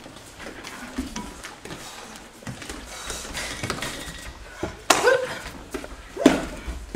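Two loud, sharp slapping impacts about a second and a half apart, from kenpo partner techniques landing on a partner on a padded mat, each followed at once by a short vocal shout. Lighter knocks and shuffling come before them.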